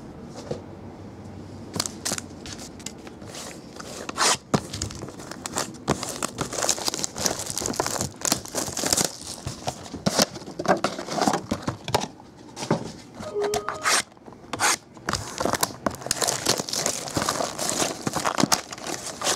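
Clear plastic shrink-wrap being torn and crinkled off a cardboard trading-card box, crackling irregularly, with a few sharp knocks as the box is handled.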